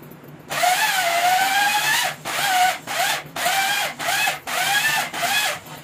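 Hand-held electric drill worked in a cylinder bore of a six-cylinder diesel engine block. It runs once for about a second and a half, then in about seven short trigger bursts, its motor whine sagging and picking up again with each one.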